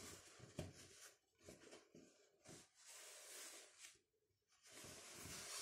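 Near silence with faint, intermittent rustling and a few soft handling clicks, as of the trousers' fabric being moved about.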